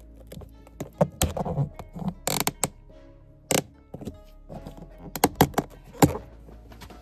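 Sharp plastic clicks and knocks, a dozen or so in irregular bunches, as a plastic pry tool levers a clear plastic door courtesy-light projector out of its socket in a BMW E60 door panel, over background music.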